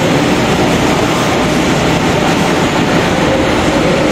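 Steady, loud engine and machinery noise inside a ferry's enclosed steel vehicle deck, with a few faint held tones under the noise.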